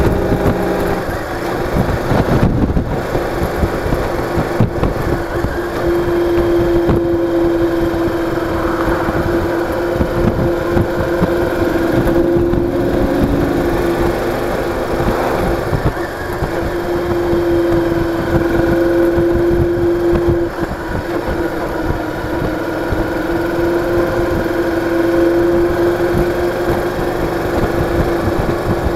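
Cruiser motorcycle's engine running steadily at road speed, mixed with wind and road noise. The engine note dips briefly a few times.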